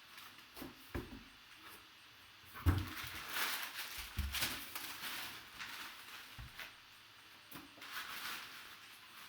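Cardboard box being opened and its contents handled: rustling with several dull knocks, the loudest a little under three seconds in.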